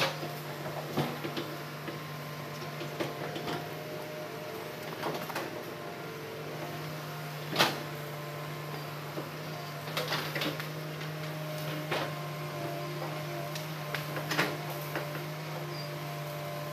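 Hitachi hydraulic excavator's diesel engine running steadily while the machine works a log, with scattered clanks and knocks from the boom and bucket, the loudest a little past halfway through.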